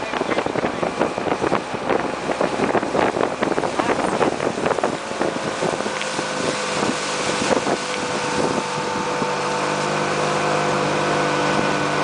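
Motorboat engine running steadily, a hum of several steady tones that comes in about five seconds in. Before that, wind and knocks on the microphone as the camera is moved about.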